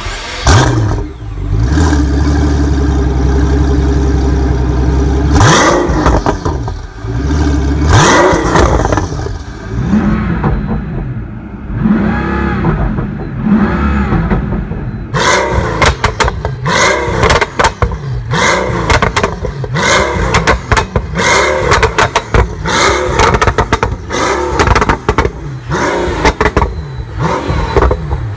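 Pagani Huayra BC's twin-turbo AMG V12 revved while standing still. It runs steadily for a few seconds, then is blipped up and down again and again, quicker in the second half, with sharp crackles between the blips.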